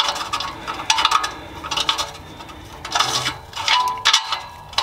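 Hands working a wideband oxygen sensor's wiring harness and plug, giving irregular rubbing, rustling and small plastic clicks.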